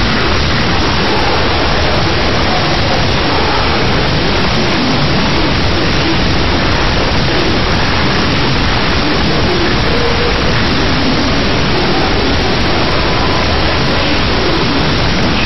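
Loud, steady rushing noise like static hiss, unchanging throughout, with no distinct knocks, calls or tones standing out.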